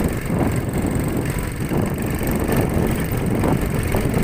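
ATV engine running while being ridden, heard as a steady low rumble mixed with wind buffeting the microphone.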